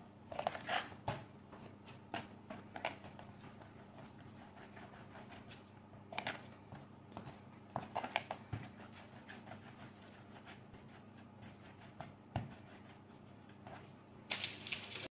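Hands working soft biscuit dough on a wooden board: faint scattered taps and short rustles as pieces are pinched off, rolled and set down, over a faint steady hum.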